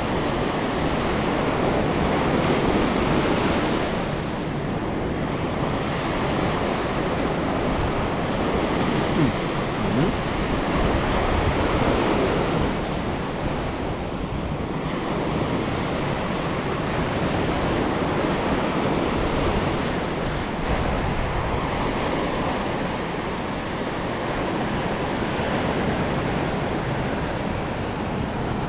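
Small surf breaking and washing up a sandy beach, swelling and easing every few seconds, with wind buffeting the microphone.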